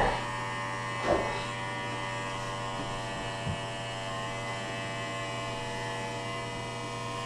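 Electric hair clippers running with a steady hum as they cut hair. A couple of brief louder sounds break in during the first second or so.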